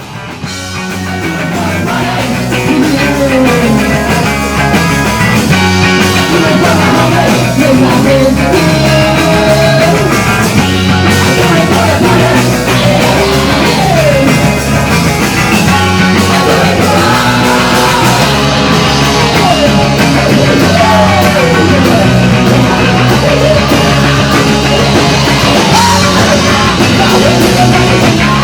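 Loud punk rock from a band with electric guitar, bass and drums, the guitar bending notes up and down over a steady driving low end. It swells in over the first couple of seconds and then stays loud.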